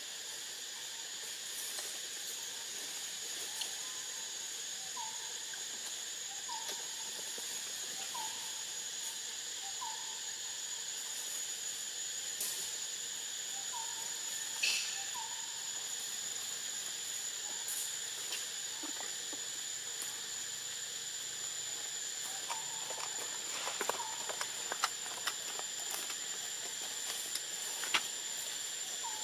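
Forest ambience of insects droning steadily on one high tone, over an even hiss. A short rising call repeats about every second and a half in several runs, and a few sharp light crackles come near the end.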